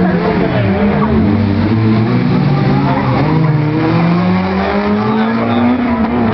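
Small hatchback race car's engine being driven hard, its pitch climbing and dropping again and again as the driver accelerates and lifts between tight turns.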